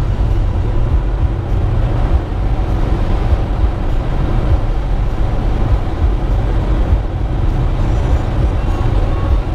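Steady low rumble of a car driving at road speed, tyre and wind noise heard from inside the cabin.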